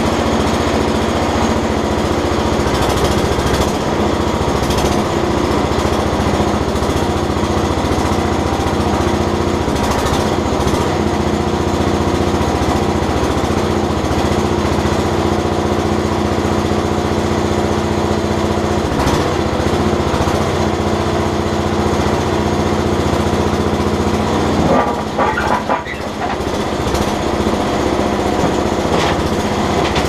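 Small engine of a Terramite compact backhoe running steadily while its hydraulic controls are worked to raise and lower the bucket. About 25 seconds in, the sound briefly dips and changes, then steadies again.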